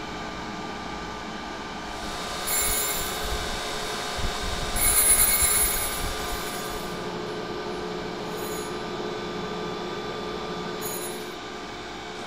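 Tormach PSG 612 surface grinder running steadily with its grinding wheel spinning. About two and a half and five seconds in come brief, louder high-pitched scraping hisses, with fainter ones later: the diamond point of an optical wheel dresser touching the spinning wheel.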